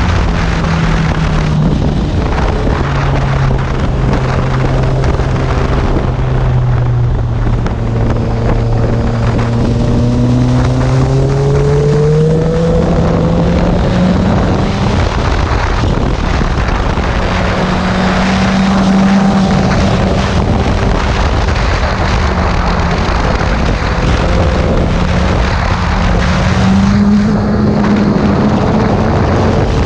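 Sport motorcycle engine running under way, its pitch steady at first, then climbing over a few seconds about halfway through and settling higher, with another rise near the end. A constant rush of wind noise runs under it.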